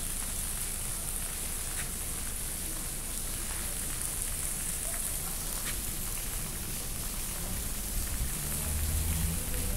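Steady hiss of outdoor street background noise, with a low rumble that grows stronger near the end.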